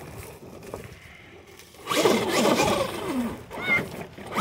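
Traxxas X-Maxx RC monster truck crawling over loose rocks: its brushless electric motor whines up and down in pitch as it pushes, with tyres grinding and rocks clattering, loudest from about two seconds in for a second and a half.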